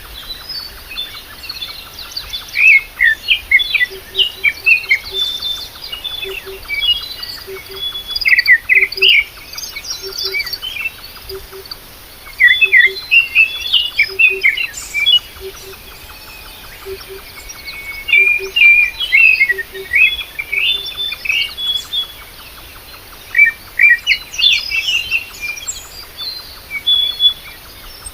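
Several small birds chirping and twittering in busy, overlapping bursts, with a soft low double note repeating about once a second underneath from a few seconds in.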